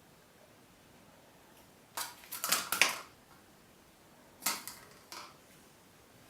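A kitten's claws scratching and scrabbling on a cardboard box in quick bursts: a flurry of scrapes about two seconds in, then two shorter scratches later.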